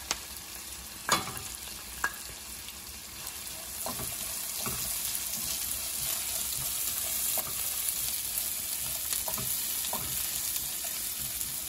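Chopped onions sizzling in hot ghee in a nonstick pan, with sharp clicks about one and two seconds in. From about four seconds in, a silicone spatula stirs them and the sizzle grows louder.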